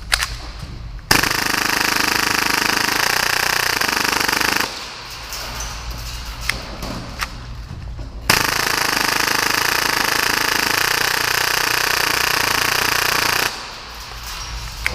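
Full-auto Tokyo Marui Hi-Capa airsoft pistol, modified to fire about 30 rounds a second, firing two long sustained bursts: one of about three and a half seconds starting a second in, then a longer one of about five seconds starting near the middle. Between them are a few scattered clicks.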